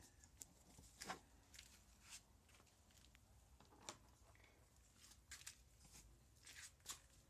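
Near silence with faint, scattered rustles and light clicks of a hand searching through the straw of plastic chicken nest boxes.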